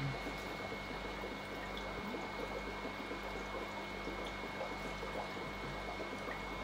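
Steady bubbling and trickling of air bubbles rising in a small aquarium, with a faint steady hum underneath.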